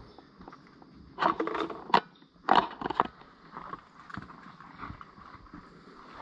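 A hiker scrambling up between boulders: shoes and hands scuffing and scraping on rock and dry leaves, in irregular bursts that are loudest between about one and three seconds in.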